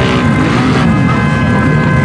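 Music playing together with vehicle engines running.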